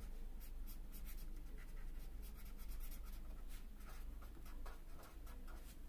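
Marker pen scratching on paper in many short, quick strokes as a small bar is coloured in.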